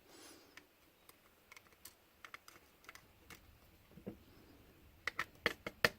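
Light, scattered metallic clicks and ticks of small serrated lock pins being handled and taken out of a pin-tumbler lock's core into a pinning tray, coming quicker near the end.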